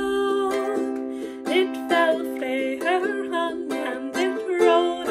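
Ukulele strummed in a steady rhythm under a woman singing a verse of a children's folk song, her sung phrases coming and going over the chords.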